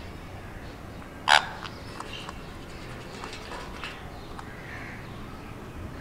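Indian ringneck parakeet giving one short, loud, harsh screech about a second in, followed by a few faint ticks.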